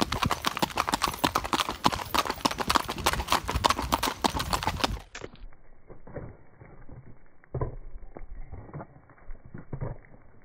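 Shod horses' hooves clip-clopping on a paved road in rapid, overlapping hoofbeats. About halfway through, the sound suddenly turns muffled and much quieter, leaving a few scattered, softer thuds.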